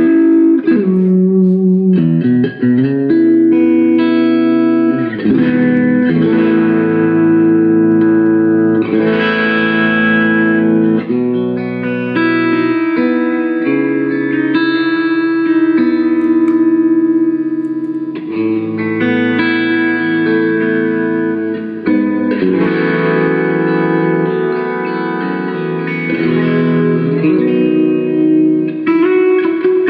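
Knaggs electric guitar played through a Gizmoaudio Sawmill Jr drive pedal into a Dr Z Maserati amp: held, sustaining driven chords and chord changes.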